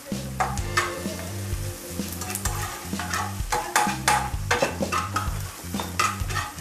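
Spatula stirring and scraping in a frying pan over a gas flame, with repeated clinks against the pan, as chopped onions, peppers and garlic sizzle in hot oil. Background music plays underneath.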